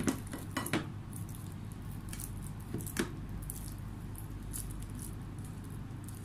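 Hands working soft mashed plantain dough, with light clicks and knocks against a ceramic plate: several close together in the first second and one sharper one about three seconds in, over a steady low hum.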